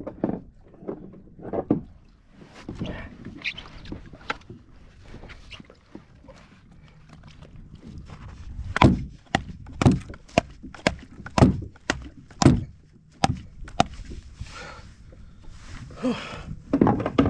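A freshly landed halibut being clubbed to kill it: a run of about ten hard thuds over some five seconds, starting about halfway through, with lighter knocks from handling the fish before it.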